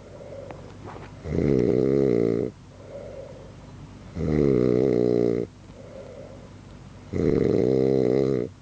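A man snoring heavily: three loud rasping snores, each just over a second long, about three seconds apart, with a softer breath between each.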